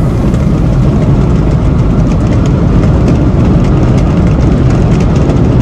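2020 Mahindra Thar driving at highway speed, heard from inside the cabin: a loud, steady rumble of engine, tyre and wind noise.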